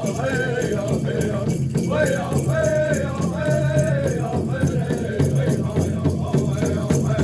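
Native American drum group singing a hoop dance song over a steady drumbeat, with a rattling sound on the beat.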